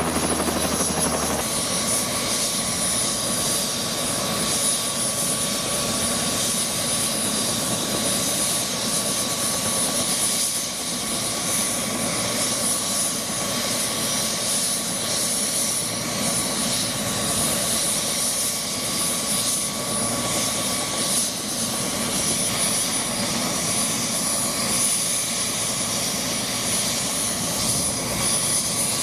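Turbine helicopter parked and running at ground idle: a steady rushing engine noise with a high, unbroken turbine whine, while it is being refuelled.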